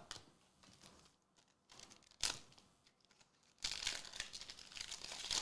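Foil booster pack wrapper being handled, faint: a single sharp crackle a little after two seconds, then a couple of seconds of steady crinkling.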